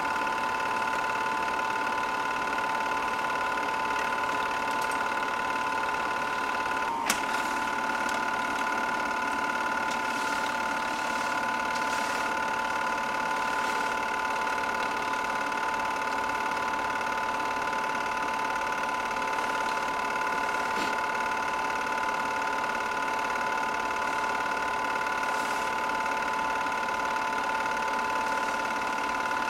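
An 8mm film projector running: a steady whirr and chatter from the film transport, with a single sharp click about a quarter of the way in.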